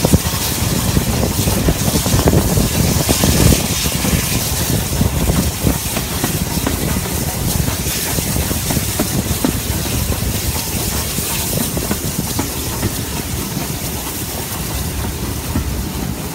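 BR Standard Class 4 2-6-4T tank engine 80078 under way, heard from the leading carriage: steam hiss and exhaust mixed with the clatter of the train running over the track, a little louder in the first few seconds.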